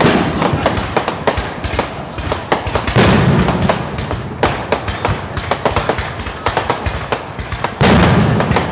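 Fireworks display: a rapid run of sharp pops and cracks from shells bursting overhead, with three heavier booms, one at the start, one about three seconds in and one near the end.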